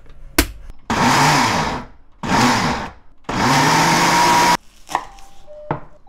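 Electric blender with a stainless-steel jar grinding chunks of pear and onion, run in three bursts of about a second each after a click of the switch. A few light knocks follow near the end.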